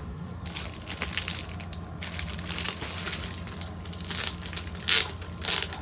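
Crinkling and rustling of something being handled, like plastic or paper, with two louder crackles near the end.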